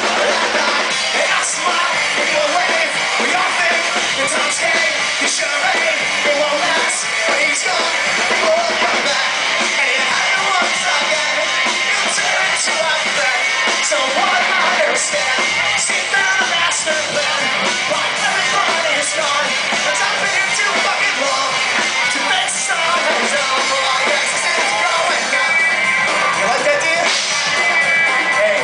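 Live rock band playing loudly with a singer, drums keeping a steady beat. The sound is thin, with little bass.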